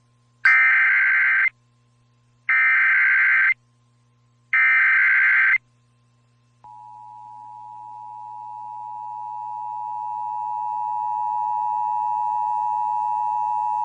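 Emergency Alert System activation on a radio broadcast: three one-second bursts of SAME header data tones, a second apart, then the two-tone attention signal, a steady dual-pitched tone that starts about six and a half seconds in and grows louder over several seconds. It is the lead-in to a tornado warning.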